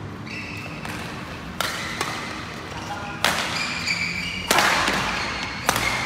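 Badminton rally: racket strings smacking the shuttlecock about five times, a little over a second apart, the later hits loudest and echoing in the hall, with shoes squeaking on the court floor between strokes.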